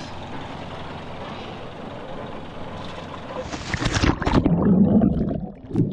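Wind and water rushing past a sailboat under way. About three and a half seconds in, the camera plunges into the sea with a loud splash and bubbling, followed by the muffled rush of water heard underwater.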